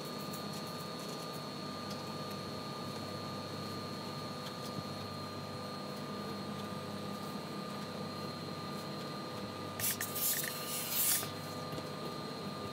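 Steady hum of a steam ironing station, with a few fixed tones held throughout. Near the end comes a hiss of steam lasting about a second and a half.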